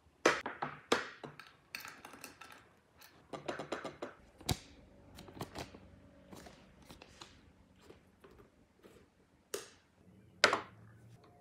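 Small walnut box being handled: scattered wooden clicks and knocks from its lid and body, with light paper handling in between. The loudest knocks come just after the start and again near the end.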